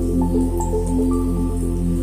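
Background music with soft, held melodic notes over a steady low drone.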